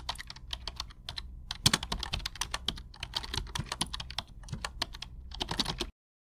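Computer keyboard typing: a quick, irregular run of key clicks that stops suddenly near the end.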